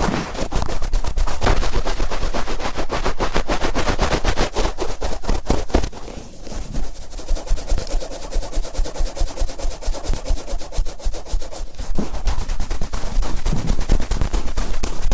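Cotton swab rubbed and twisted firmly in a binaural microphone's ear: dense, rapid crackling and scratching, duller and a little softer for a stretch in the middle.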